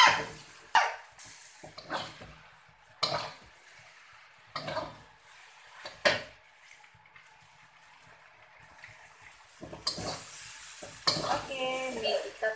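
Spatula scraping and knocking against a steel wok as stir-fried yellow noodles are tossed, in separate strokes about every second, which thin out after about six seconds.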